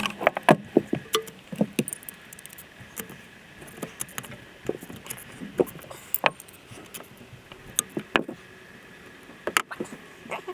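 Irregular clicks, clinks and light knocks of metal hand tools and engine parts being handled while a spark plug is worked out of an old small-block Chevy V8.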